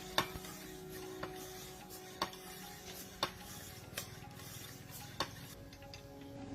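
Sharp taps or clicks, roughly one a second and irregular, over faint steady background music.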